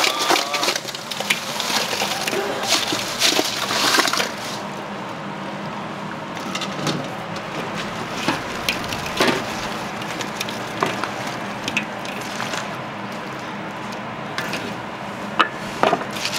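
Fried chicken pieces being tipped into a large steel wok and tossed through sticky sauce with a wooden spatula and a plastic plate: clattering and scraping against the metal, busiest in the first few seconds, then steadier stirring with scattered taps.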